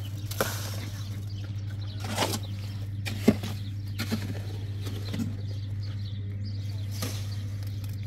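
Shovel work with wet mortar on a cinder-block wall: scattered scrapes and knocks, with one sharp knock about three seconds in, over a steady low hum.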